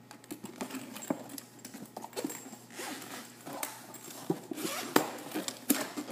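Zipper of a soft paintball marker case being run open, with a string of sharp clicks and rustling as the case is handled.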